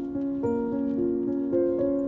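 Background music of held pitched notes that step to new notes about every half second, with faint light ticks over it.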